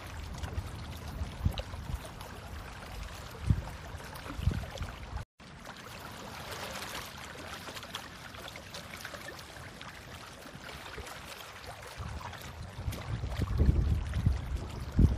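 Hands digging and squelching through wet black tidal mud, with irregular wet sloshing and low thumps that grow heavier near the end. The sound cuts out completely for a moment about five seconds in.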